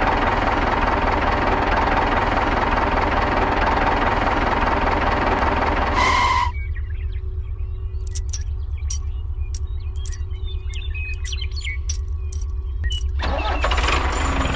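Tractor engine running with a low rapid pulse. A full rush of engine noise over it cuts off about six seconds in, leaving only the low pulse and a few light clicks, and comes back near the end.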